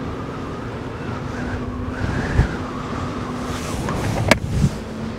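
Wind rushing and gusting over the microphone, over the low rumble of an InMotion V11 electric unicycle rolling on the road, with a faint steady hum underneath. There is one sharp click a little over four seconds in.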